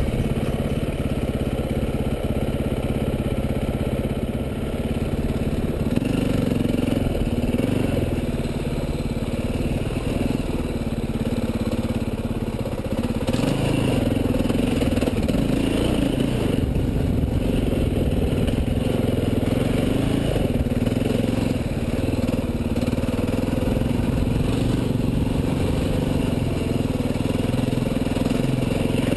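Enduro motorcycle engine running as the bike rides over a rocky dirt track, the engine note rising and falling repeatedly with the throttle.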